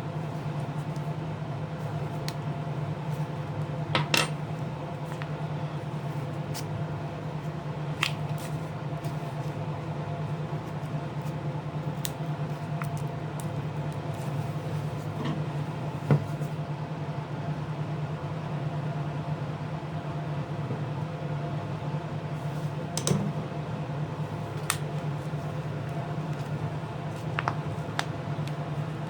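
Scattered small clicks and taps of hand tools and parts during the disassembly of a Samsung Galaxy A50 phone, at irregular intervals, over a steady low hum.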